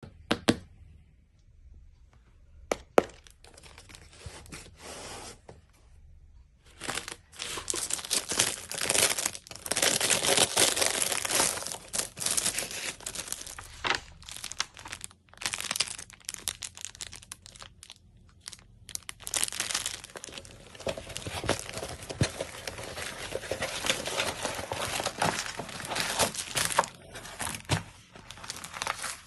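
Packaging of a diamond painting kit being handled and opened: wrapping crinkling, rustling and tearing in long stretches with short pauses, after a few sharp clicks near the start.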